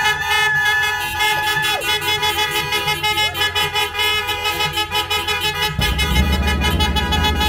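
Car horns honking, several steady tones held at once. A low rumble joins about six seconds in.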